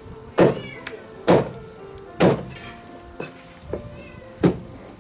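Cleaver chopping pig's trotters on a wooden chopping block: four heavy chops about a second apart, with two lighter knocks between the last two, over background music.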